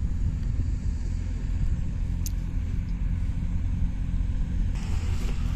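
Low, gusty rumble of wind buffeting the microphone in open country, with a brief sharp click a little past the middle and a short burst of hiss near the end.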